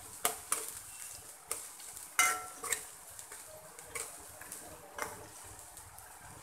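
Steel slotted spoon scraping and knocking against a metal kadai while stirring onions frying in oil, about one stroke a second, the loudest knock about two seconds in, over a faint sizzle. The stirring stops near the end.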